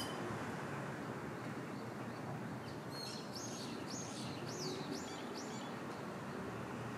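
Steady outdoor background noise, with a small bird chirping a quick run of high notes from about three seconds in, lasting a couple of seconds.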